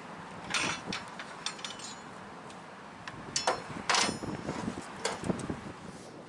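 Knocks, clunks and scrapes of metal as the hinged lid and coal box of a miniature steam locomotive's tender are handled, the loudest cluster a little past halfway.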